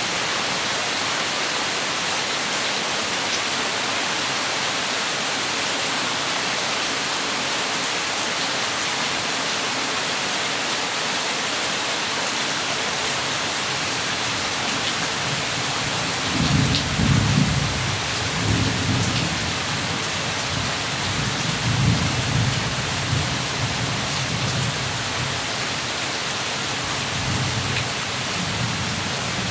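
Heavy rain falling steadily, with thunder rolling in about halfway through and rumbling in several swells until near the end.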